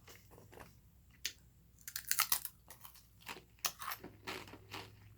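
Scattered crunching and crinkling clicks close to the microphone, with a dense cluster about two seconds in and a few more near the end.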